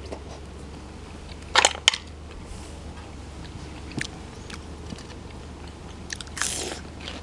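Close-miked eating sounds: a couple of sharp, crisp bites about a second and a half in, a light mouth click about four seconds in, and a longer crunch near the end, over a low steady hum.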